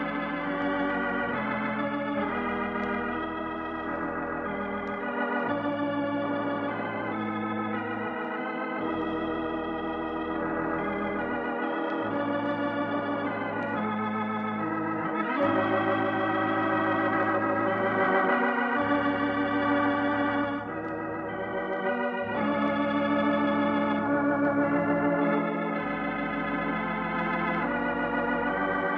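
Organ playing the closing theme: sustained full chords over held bass pedal notes, the harmony shifting every few seconds.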